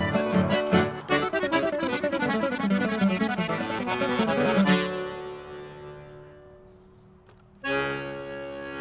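Accordion playing a quick run of notes that settles onto a held chord, which fades out gradually; a new sustained chord comes in near the end.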